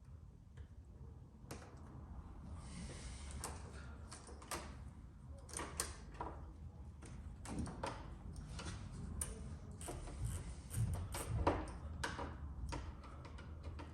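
Scattered clicks, taps and knocks of metal parts being handled while a motorcycle clutch cable is being fitted, with a brief rustle about three seconds in.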